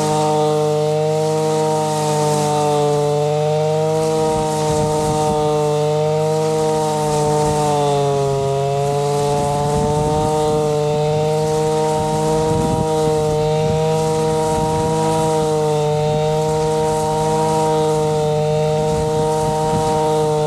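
Zenoah BCZ315 two-stroke brush cutter running at high revs. Its engine note wavers and dips briefly about eight seconds in as it takes load. From about four seconds on there is a rough, uneven chopping as the grass blade cuts through grass.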